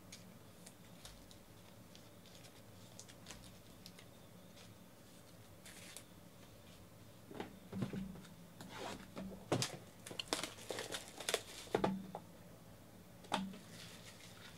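Handling noise of trading cards and a clear plastic card holder: faint small ticks at first, then a run of sharp clicks and rustles from about halfway through, with one more click near the end.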